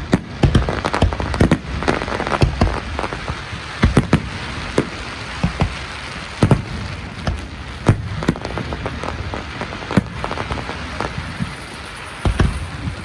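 Fireworks going off: irregular sharp bangs, several close together at times, over a steady crackle.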